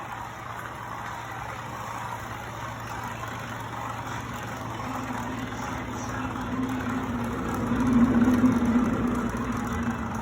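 An engine idling with a steady low hum. A low tone swells from about halfway through, is loudest near the end, then eases.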